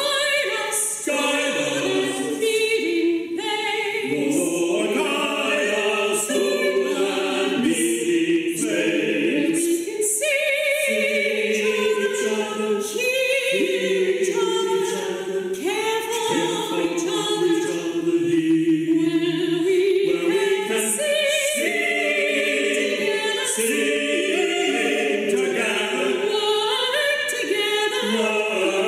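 Small mixed choir of men and women singing a hymn in harmony, with the words 'Guide us to that meeting space where we can see each other, hear each other, care for each other'.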